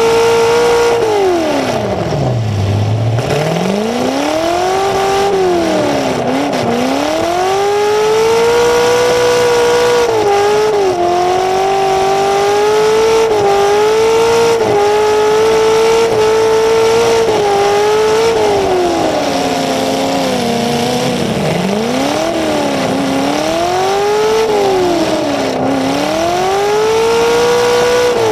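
Full-size demolition derby car's engine, running through open exhaust pipes that stand straight up through the hood, heard close up. It revs hard over and over: the pitch drops to low revs a couple of seconds in, climbs and holds high for several seconds, then falls and rises again several times.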